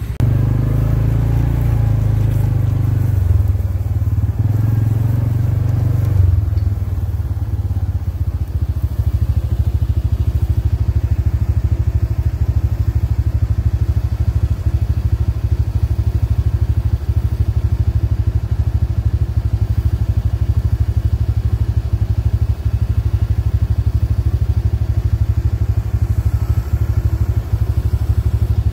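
Tractor engine running steadily while driving. It is heavier and changing in pitch for about the first six seconds, then settles into an even drone.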